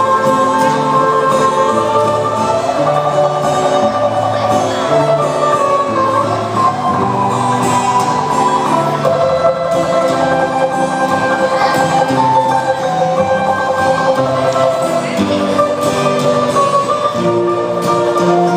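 Balalaika playing a lively medley of songs, plucked melody over long held notes and a repeating bass line.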